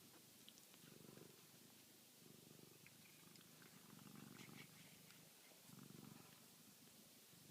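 Tiny kitten purring faintly, the purr swelling and fading about every second and a half with each breath.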